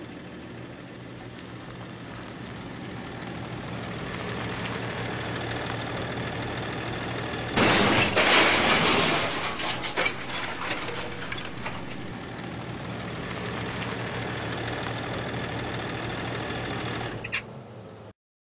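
Steady vehicle engine hum, then about eight seconds in a loud crash as a dump truck with its bed raised topples onto its side, followed by crunching and scraping that dies away over a few seconds. The sound cuts off suddenly near the end.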